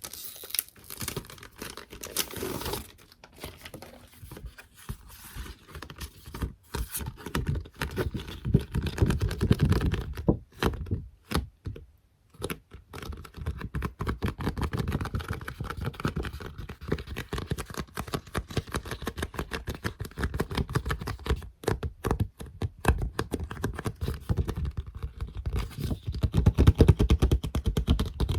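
Fingertips rapidly tapping and patting on soft squishy toys and stickers, a dense run of soft, sticky 'peta-peta' taps. The tapping pauses briefly about ten seconds in, then resumes.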